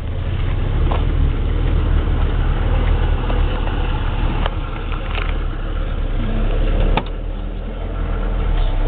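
Volkswagen Transporter T3's petrol flat-four engine idling steadily, with a sharp click about seven seconds in as the driver's door latch opens.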